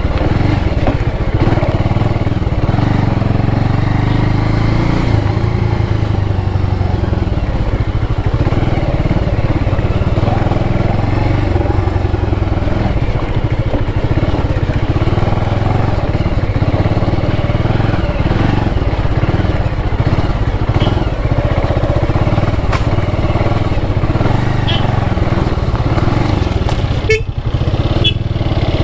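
Motorcycle engine running steadily at low speed while riding a muddy, rutted dirt track.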